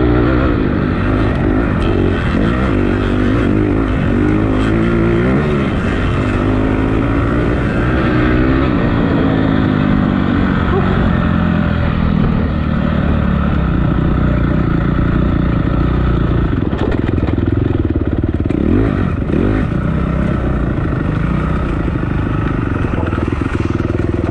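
Dirt bike engine revving up and down over and over while riding, the pitch rising and falling with the throttle.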